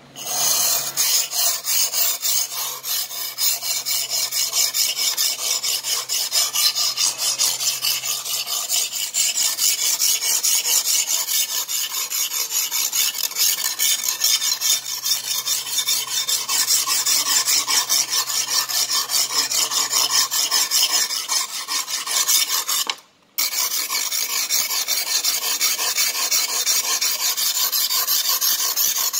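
A wet oval sharpening stone rasping in rapid, even back-and-forth strokes along a sickle's chipped steel edge, grinding the chips out to restore the blade's shape. The strokes stop briefly about two-thirds of the way through, then resume.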